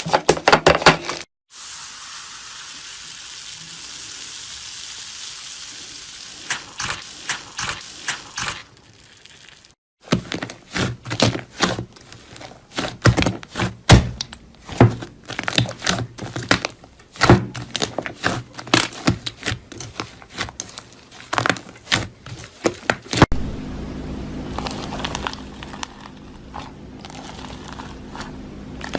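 Slime being squeezed and pressed by hand, making rapid sticky clicks, crackles and pops in several separately cut takes. One stretch is a steady soft hiss, and the last takes have a steady low hum under quieter clicks.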